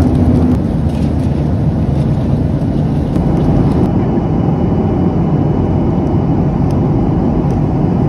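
Jet airliner in flight, heard inside the cabin: the steady, loud rushing hum of the engines and airflow. A low steady tone under it fades out about half a second in.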